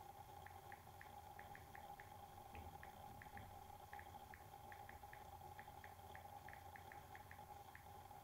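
Near silence: room tone with a faint steady hum and faint, irregular little ticks, a few each second.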